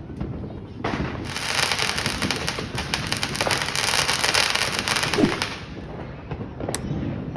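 Fireworks crackling: a dense, rapid run of sharp cracks starting about a second in and lasting some four and a half seconds, then a couple of single sharp pops near the end.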